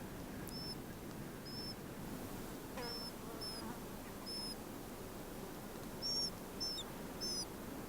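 Spectacled warbler calling: short high chirps about once a second, with a quicker run of them near the end.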